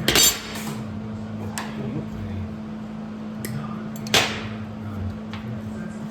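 Steel parts clanking in a metal shop: two loud metal clanks about four seconds apart, with lighter clinks between, over a steady low hum.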